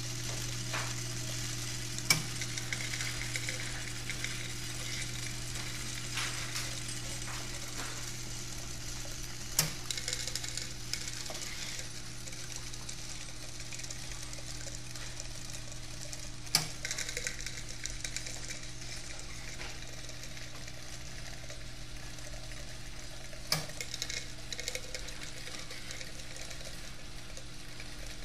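Capsule counting machine running: a steady hum from its vibrating feeder under the rattling hiss of capsules sliding along the trays. Four sharp clicks, about seven seconds apart, stand out above it.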